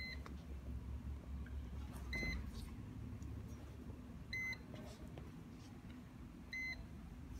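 Control unit of a Hedson IRT Freeform Effect e infrared curing lamp beeping during its distance-check step: a short high beep about every two seconds. A low steady hum runs underneath.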